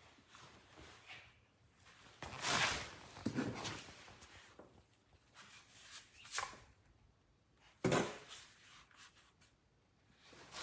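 Scattered handling noises: irregular rubs and a few knocks, the sharpest knock about eight seconds in.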